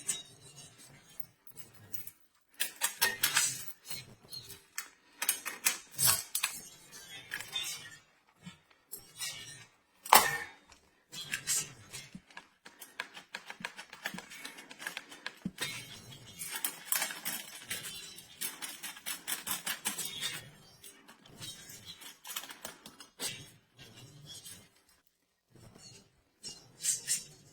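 Irregular clicks, knocks and clatter of metal parts and tools being handled as an angle grinder chainsaw attachment is set up, with a sharper knock about ten seconds in.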